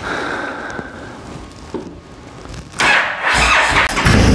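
2017 Honda Fury's 1312 cc V-twin cold-starting through Cobra aftermarket swept pipes. The electric starter cranks a little under three seconds in, and about a second later the engine catches and settles into a loud, steady idle.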